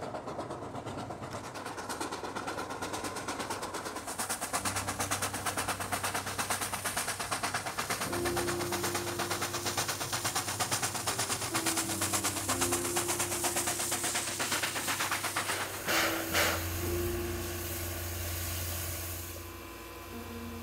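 China Railways JS-class coal-fired steam locomotive working hard, its exhaust chuffing in a fast, even beat of about four a second over a hiss of steam. About sixteen seconds in there is a short louder burst of hiss, after which the beat gives way to a steadier hiss and hum.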